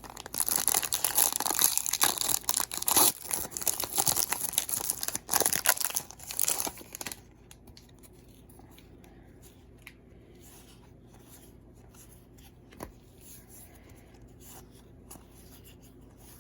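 Baseball card pack wrapper being torn open and crinkled for about seven seconds, then quiet handling of the cards with faint rustles and a single click near the end.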